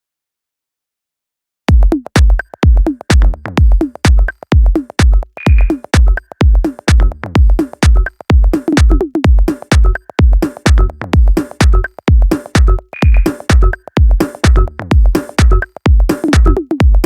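Electronic dance music with a heavy, steady drum-machine kick beat, starting about two seconds in after near silence.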